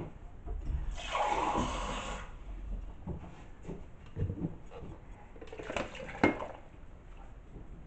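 Water splashing as it is poured from a drinking glass into a blender jug of chopped fruit, in two pours, the first about a second in and the second around six seconds in. A few light knocks and one sharp knock near the end of the second pour.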